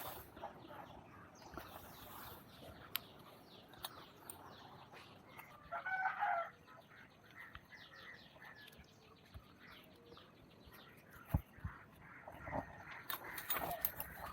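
A short bird call, a brief pitched cry about six seconds in, over faint rustling and light clicks, with one sharp knock a little past the middle.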